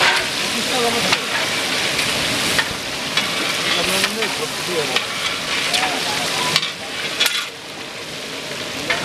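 Chicken pieces deep-frying in a large iron kadai of oil, a steady sizzle, with occasional clinks and scrapes of the long metal spatula against the pan as they are stirred. The sizzle drops a little in loudness near the end.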